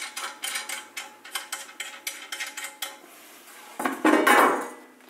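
Small metal hardware and tools clicking and clinking against the metal amplifier chassis while the speaker terminals are being worked by hand, quick sharp clicks about four or five a second. About a second from the end comes a louder scraping rustle.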